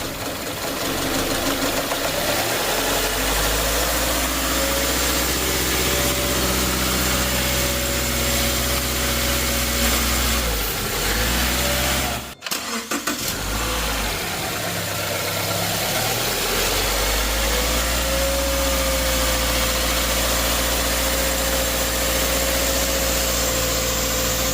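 Subaru 2.5-litre non-turbo flat-four engine starting and settling into a steady idle, on a freshly installed serpentine belt, idler and tensioner. It is heard twice, with a brief break near the middle.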